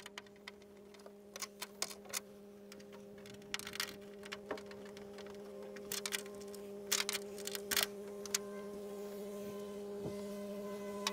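Light metallic clicks and taps of a screwdriver and wrench working small stainless steel bolts and nuts, scattered and irregular with a busier cluster past the middle, over a steady low hum.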